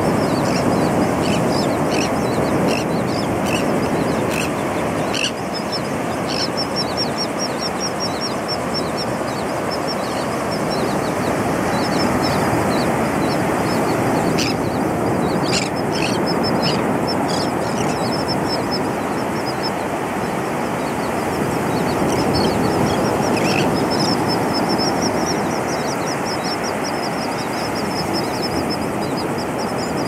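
Ocean surf breaking steadily on the beach, with a flock of seabirds calling in runs of short, high, rapidly repeated notes that come and go.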